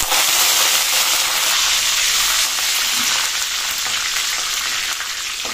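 Fresh curry leaves sizzling hard in hot oil in a kadhai with panch phoron and a dried red chilli, a steady loud frying hiss that eases slightly toward the end, while a metal spatula stirs them.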